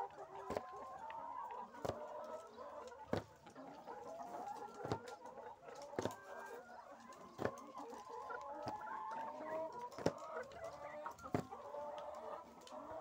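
A flock of caged brown laying hens clucking throughout, many short calls overlapping. Sharp knocks every second or two, at irregular intervals.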